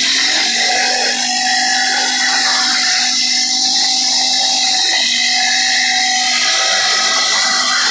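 Four-stroke ATV engine running at a steady pitch while the quad drives across sand, with a brief dip about five seconds in, over a loud steady rush of wind.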